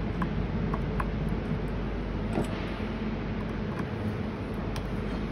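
Light, scattered metallic clicks and ticks of a screwdriver working the screws that fix the IGBT power devices to an inverter's heatsink, over a steady background hum and hiss.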